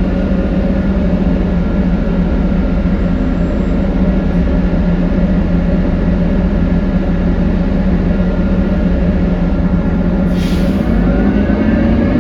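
Interior of a 2018 New Flyer XD40 diesel transit bus running, with a loud, steady droning tone from the drivetrain that the uploader calls horrible. A short hiss of released air comes about ten seconds in, and the drone then starts rising in pitch near the end as the bus speeds up.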